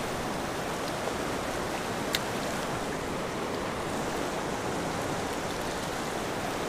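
Mountain river rushing steadily over a rocky bed, heard close from the bank, with one light click about two seconds in.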